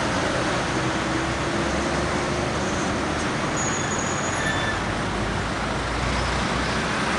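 Steady road traffic passing. A loaded diesel cargo truck's engine and tyres rumble past, loudest in the second half, with cars and a motorbike mixed in.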